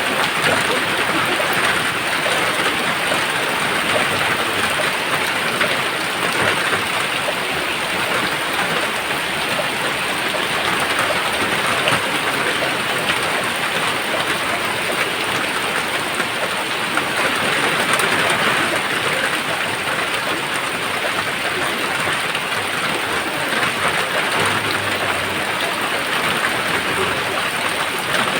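Steady rain falling, a dense even hiss of drops that holds at one level throughout.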